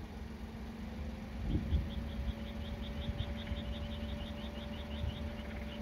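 Distant fireworks shell bursting: one low, dull boom about a second and a half in, over a steady low rumble and hum. A high, even chirping at about four a second sets in at the same moment and keeps on.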